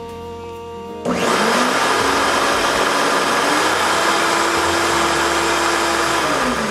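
Shop vac blower, standing in for a dirt bike exhaust, switched on suddenly about a second in and running loudly with a rushing of air. Its motor whine climbs in pitch partway through and drops near the end.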